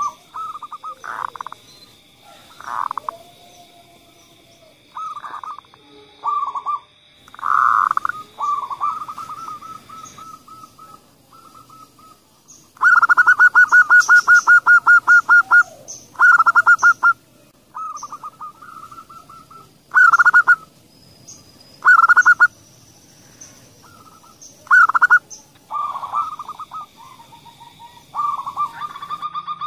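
Zebra doves (perkutut) calling: short coos and rapid stuttering trills, with the loudest ones in the second half. A thin steady high tone and faint high chirps sit behind them.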